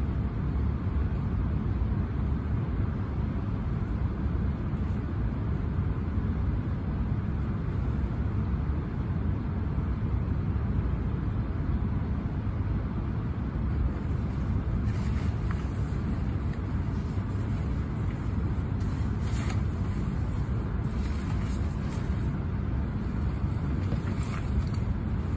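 Steady low rumble of a train heard from inside the carriage as it rolls slowly along a station platform, with a few faint ticks in the second half.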